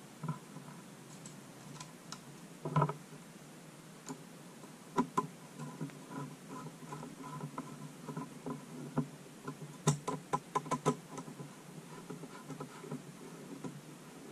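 Light clicks, taps and knocks of small plastic and metal computer-fan parts and screws being handled and fitted, with a quick run of clicks about ten seconds in.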